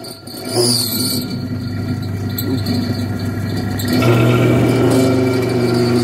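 EBMpapst A4E350 single-phase 350 mm axial air-conditioning fan running on its capacitor, with a loud deep hum and a rough, whirring mechanical noise that grows stronger about four seconds in. It sounds pretty bad, and the owner suspects its ball bearings.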